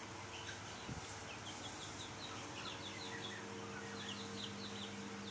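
Chicks peeping faintly in runs of short, high, falling chirps, over a steady low hum.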